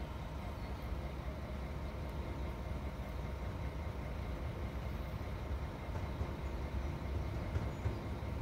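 Newag Impuls EN63A electric multiple unit coupled with an ED78, approaching from a distance: a low, steady rumble.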